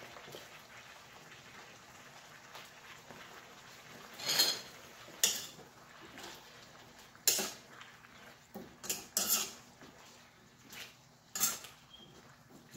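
Chicken simmering faintly in its juices in a wok. From about four seconds in, a utensil stirs the pieces, with several sharp knocks and scrapes against the pan.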